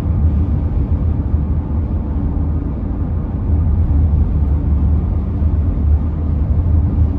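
Inside the cabin of a car driving along a highway: a steady low rumble of road and engine noise.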